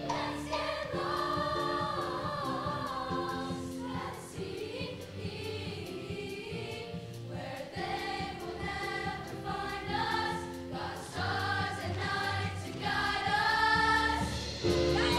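Middle school show choir singing a song in many voices over instrumental backing, growing louder toward the end.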